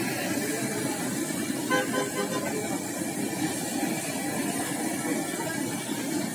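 Jalebi batter deep-frying in a wok of hot oil, a steady sizzle, with street traffic around and a vehicle horn tooting briefly about two seconds in.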